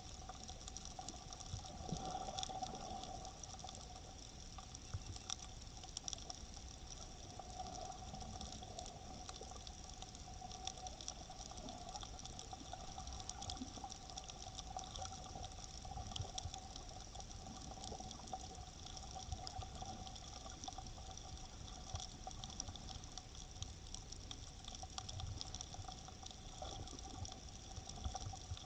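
Faint, muffled underwater ambience picked up through a camera's waterproof dive case: a steady wash of water noise with a faint steady hum and scattered light clicks.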